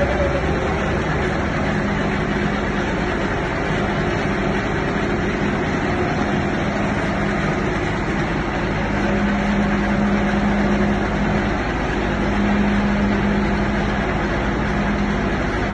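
Motor-driven soil grinding machine running, a loud, even mechanical rush with a low hum that swells and fades several times.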